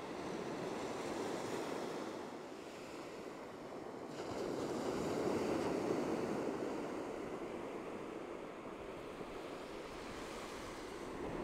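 Ocean surf washing onto a beach: a steady rush of breaking waves, with one wave swelling louder from about four seconds in and settling back by about eight seconds.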